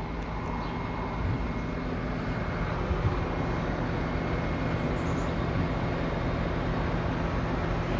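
Steady low rumble of vehicle noise with a faint constant hum.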